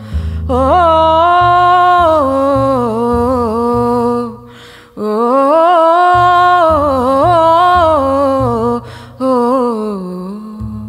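Woman's voice singing a slow, wordless melody with long held notes and sliding ornaments, over a double bass holding low notes beneath. The singing breaks off briefly twice, about four and nine seconds in.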